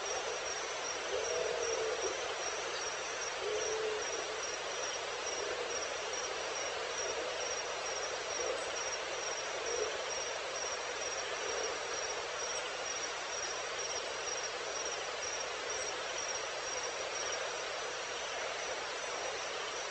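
Evening wild ambience of insects: a steady, pulsing high-pitched trill over a dense hiss of insect chirping. A few brief, wavering calls of another animal come in over the first four seconds and once more about ten seconds in.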